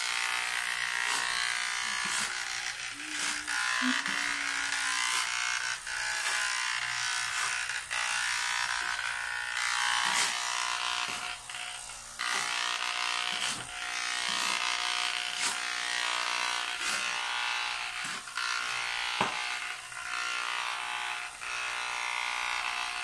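Corded electric hair clippers switched on and buzzing steadily as they cut through a child's thick hair. The buzz is broken by faint clicks and brief dips in loudness as the blades pass through the hair.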